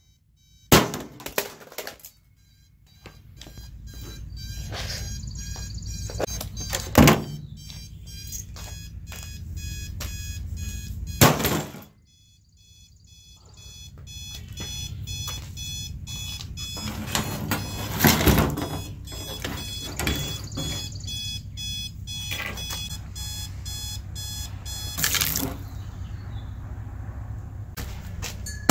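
Westclox alarm clock ringing in a rapid, continuous rattle while it is struck by about five loud blows. The ringing drops out briefly after the early blows and again about twelve seconds in, then starts up again.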